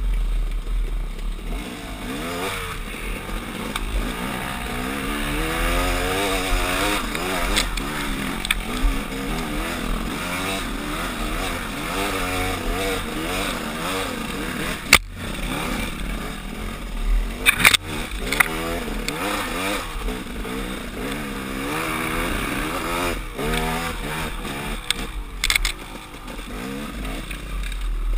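KTM dirt bike engine running under load on a trail ride, its revs rising and falling constantly with the throttle, with a few sharp knocks, one about halfway through and a couple more later.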